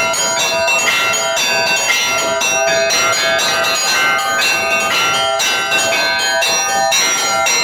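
Russian Orthodox church bells rung together in a continuous peal, several strikes a second, with the tones of high and middle bells overlapping and ringing on.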